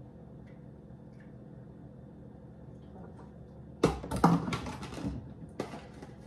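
Faint steady kitchen hum, then, about four seconds in, a cluster of sharp knocks and crackles followed by a few more. The sounds come from a large plastic water jug being handled and set down on the counter.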